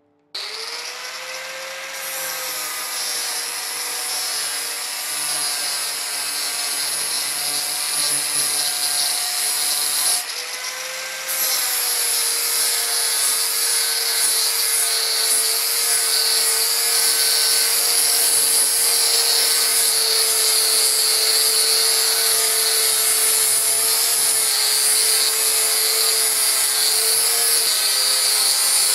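Angle grinder spinning up and grinding rust off a steel silversmithing stake, its motor holding a steady whine under the harsh grinding hiss. About ten seconds in the grinding breaks off for a second while the motor keeps running, then resumes.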